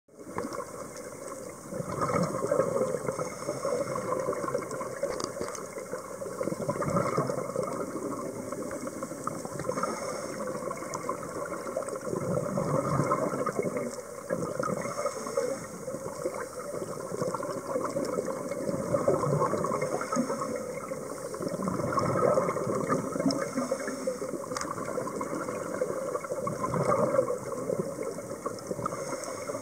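Scuba diver's regulator breathing underwater: bubbly exhalations that swell and fade every few seconds, with short hissing inhalations between them.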